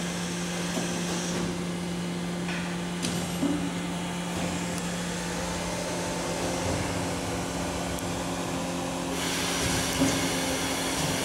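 Kuraki KBT-11WA CNC horizontal boring mill running: a steady low hum with a hiss over it, the hiss growing louder about nine seconds in.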